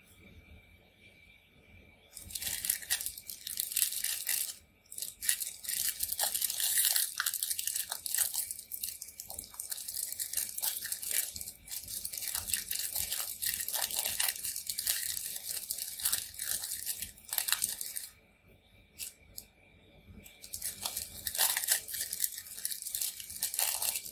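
Foil wrapper of an Oreo cookie pack being torn open and crinkled by gloved hands: dense crackling from about two seconds in, a quiet gap of a couple of seconds with a few clicks, then more crinkling near the end.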